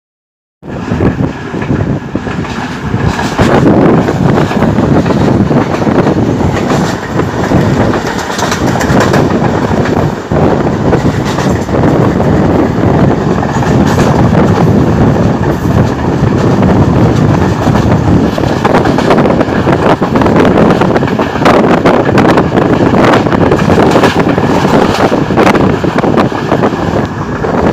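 Passenger train carriages running along the track, heard from an open carriage window: a loud, steady rush of running noise with frequent small knocks. It cuts in suddenly about half a second in.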